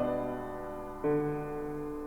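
Slow, soft piano music: chords struck about once a second and left to ring and fade.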